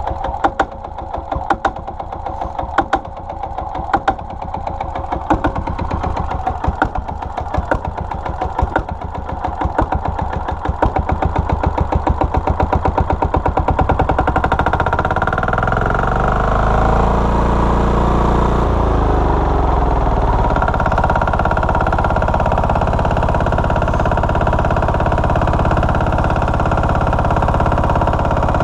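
Single-cylinder Lombardini 15LD400 air-cooled diesel on a generator, running just after a pull start: its separate firing knocks come faster and louder over roughly the first fourteen seconds as it picks up speed, then it settles into a steady run at speed.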